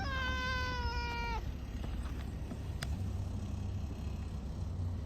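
An orange tabby cat gives one long, drawn-out meow lasting about a second and a half, dropping slightly in pitch as it ends. A single sharp click follows a little later, over a steady low rumble.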